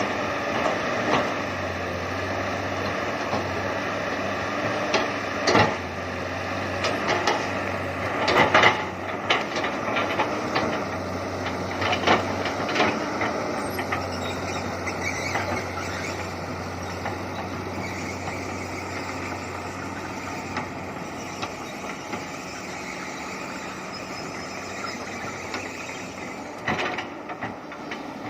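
Komatsu PC200 hydraulic excavator at work: its diesel engine runs steadily under load while the hydraulic pitch wavers up and down. Several sharp knocks and cracks come through in the first half, the loudest about a third of the way in.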